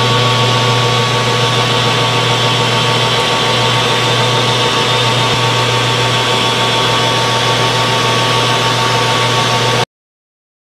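Metal lathe running steadily with a constant hum and whine while a lathe tool takes a cut on the back face of a spinning aluminium idler wheel. The sound cuts off abruptly near the end.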